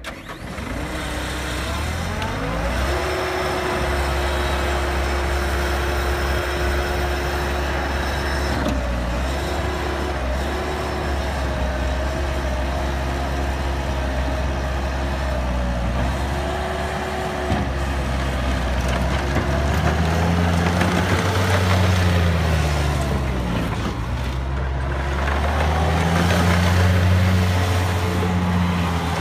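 Bobcat T190 compact track loader's four-cylinder diesel engine running. It revs up in the first couple of seconds, holds a steady speed, then rises and dips in pitch several times as the machine is operated.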